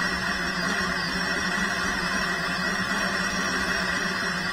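FPV racing quadcopter's motors armed and spinning at idle: a steady hum with an even hiss, holding one pitch throughout.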